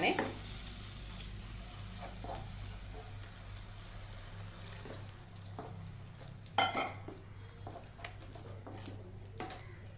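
Wooden spatula stirring and mashing ripe banana in ghee and jaggery syrup in a non-stick pan, over a low sizzle, with scattered scrapes and taps against the pan; the loudest knock comes about six and a half seconds in.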